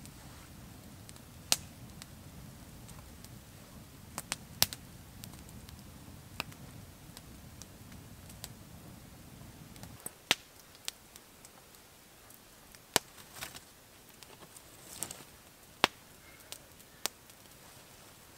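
Wood campfire crackling, with sharp single pops every second or two. A low rumble under it for the first half cuts off abruptly about ten seconds in.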